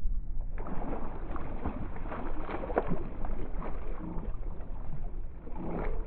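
Wind and water noise on a fishing boat, a steady rumbling hiss with scattered small knocks and rattles.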